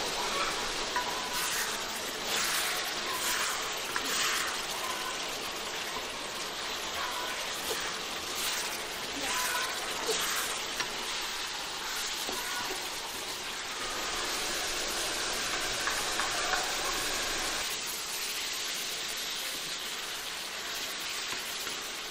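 Bamboo shoots and preserved pork sizzling in a stainless-steel pan with a steady frying hiss. A wooden spatula stirs them, with short scrapes scattered through.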